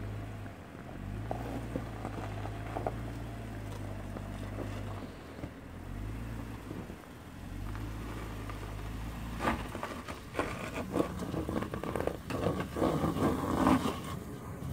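Jeep Wrangler Unlimited engine running at low revs as it crawls over rock ledges, easing off briefly about five seconds in and pulling again. Crunches and knocks from the tyres on rock build up in the second half and are the loudest sounds near the end.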